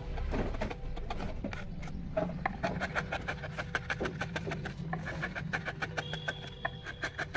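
Hand chisel paring teak wood: a quick run of small clicks and scrapes as chips come away, over a low steady hum.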